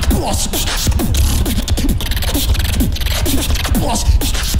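Beatboxing from a battle round: a fast, even groove of sharp clicks and snares over deep pulsing bass, with short falling pitch sweeps woven through it.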